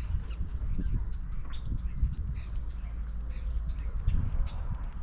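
Small songbirds at a backyard feeder calling: thin, high, slurred notes repeated about once a second from about a second and a half in, over a steady low rumble.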